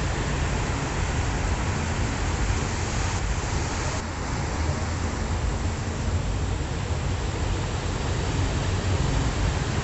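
Ocean waves washing on a shore: a steady surf hiss with a heavy low rumble beneath it, easing slightly about four seconds in and building again near the end.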